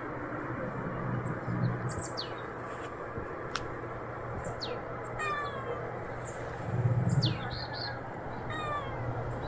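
Small birds calling outdoors: several sharp, high, downward-sweeping calls and two quick runs of repeated chirps over a steady background hiss. A brief low rumble comes about seven seconds in.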